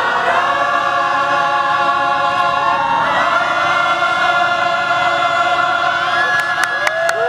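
An amateur mixed-voice choir sings in unison, holding long sustained notes. The chord shifts about three seconds in. Near the end, hand claps start to break in.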